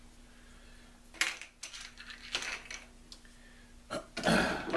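Objects being moved and set down on a workbench: a few light clicks and knocks, then a louder, rougher clatter or scrape near the end. A faint steady hum runs underneath.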